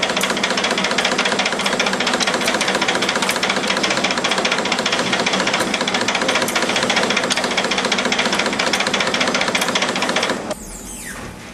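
Simco D-530 CNC spring coiling machine running, a loud, rapid, steady mechanical clatter as it feeds and coils wire. The clatter cuts off abruptly near the end.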